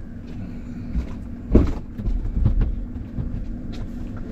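Low rumble with a steady hum, broken by one heavy thump about a second and a half in and a few lighter knocks after it.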